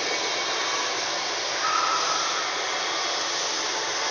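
A steady, even hiss with no change in level.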